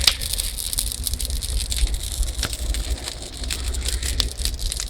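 Small campfire of twigs and wood crackling, with scattered sharp pops, over a steady low rumble of wind on the microphone.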